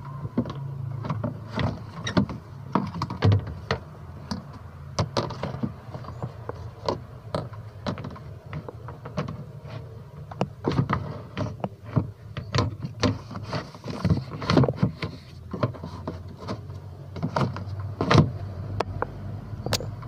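Irregular plastic clicks and knocks as a washing machine's spin-dryer housing is handled and closed back up, over a steady low hum.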